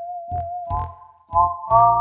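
Instrumental music on a Roland digital accordion: a held melody note over a bass-and-chord accompaniment at about two beats a second. About a second in, the melody thickens into two- and three-note chords.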